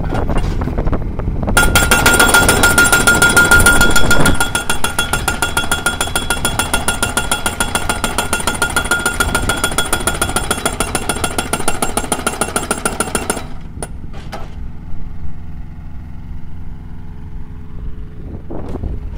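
Hydraulic post driver on a tracked rig pounding a steel crash-barrier post into the ground: a fast, even run of metallic blows with a ringing tone from the struck post. It starts a second or two in and stops suddenly about two-thirds of the way through, leaving the rig's engine running.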